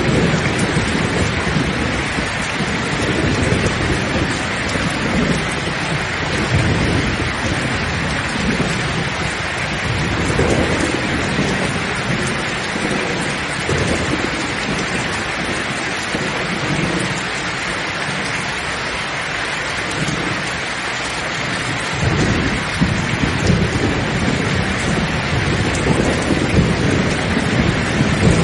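Heavy, steady rain with thunder rumbling underneath. The low rumble swells and ebbs, dies down in the middle, and builds again about three quarters of the way through.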